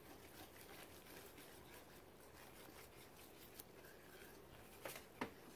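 Wire whisk stirring flour and water into batter in an enamel bowl: a faint, rapid scraping and ticking of the wires against the bowl, with two louder clicks near the end.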